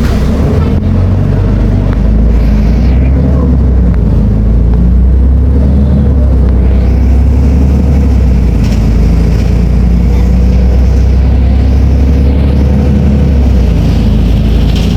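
Volvo B340M bus's diesel engine running under way: a loud, steady low drone whose pitch rises and falls slightly.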